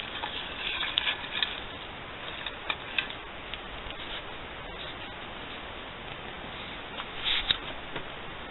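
Light rustling and a few scattered clicks from a hand handling ornaments among the Christmas tree branches, busiest in the first second and a half and again briefly near the end.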